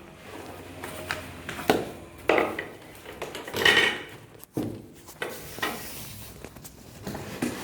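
Irregular knocks, scrapes and clatter from handling a boxed flat-screen TV and its packaging, with a short squeak about halfway through.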